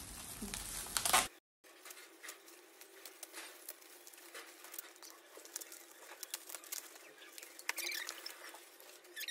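Shiny metallic foil gift wrap crinkling and tearing as a present is unwrapped by hand: a stream of small crackles and ticks, thicker near the end, broken by a short silent gap about a second and a half in.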